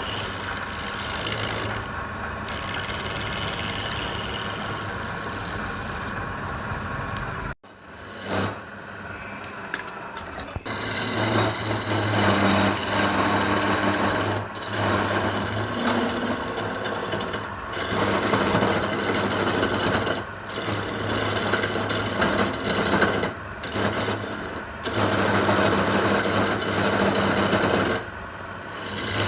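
Electric woodworking machine running with a steady hum, and the wood being worked in loud stretches of a few seconds with short pauses between. The sound cuts out abruptly about seven and a half seconds in, then resumes.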